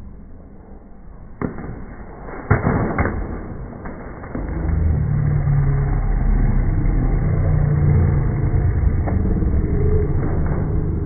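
A paper plate of pie smashed into a person's face: a click, then a loud smack between two and three seconds in, followed by a steady low din from the people around.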